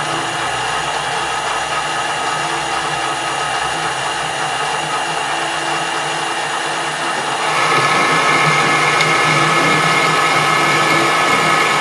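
Metal lathe running under power on a screw-cutting pass. About seven and a half seconds in, the sound gets louder and a steady higher-pitched tone joins it.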